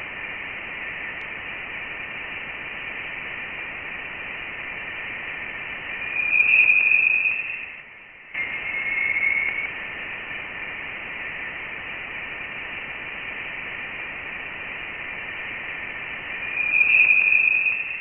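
Sonified spacecraft radio data offered as the sound of interstellar space: a steady hiss in a narrow high band with brief louder tones rising out of it. The sound cuts out for a moment and the same pattern repeats about every ten seconds.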